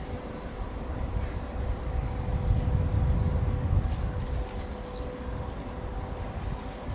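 Small birds chirping in short rising and falling calls, over the low rumble of a distant Class 754 diesel locomotive approaching, which swells for a couple of seconds in the middle, and a steady hum.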